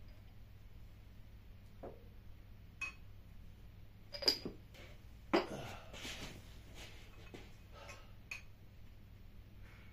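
Light china clinks of a porcelain cup and coffee bowl being handled and set down on a table, the sharpest about four seconds in. Just after comes a louder knock and about a second of scraping and rustling as a wooden chair is sat on, then a few small ticks of crockery.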